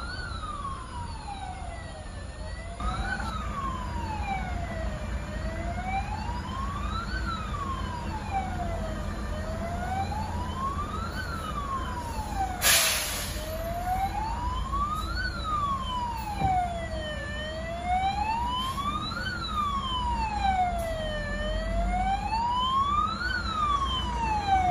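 Emergency vehicle siren wailing in slow cycles, rising and falling about once every four seconds, held up in a traffic jam. A low rumble of idling vehicles lies under it, and a short loud hiss cuts in about halfway through.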